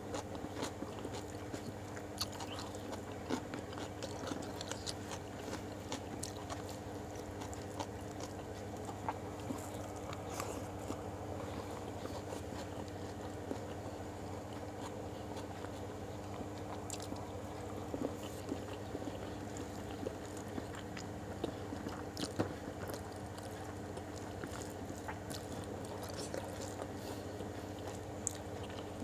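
Close-up eating sounds: chewing and small mouth clicks, with scattered light ticks from fingers working rice on a plate, over a steady low hum.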